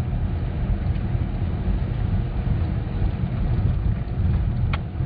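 Steady low rumble of a car driving on a rough country lane, heard from inside the cabin: engine and tyre noise, with one short click near the end.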